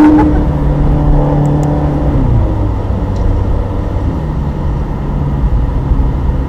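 Ferrari engine pulling hard, holding a high note, then easing off about two seconds in, leaving a lower engine rumble under wind and road noise through the open top.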